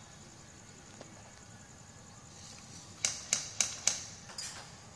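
Airsoft gun firing four quick sharp shots about a quarter second apart, about three seconds in, followed by a fainter fifth shot.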